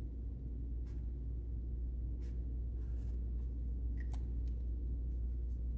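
A steady low hum with a few faint, short scratching strokes on paper as wings are added to a painted bird.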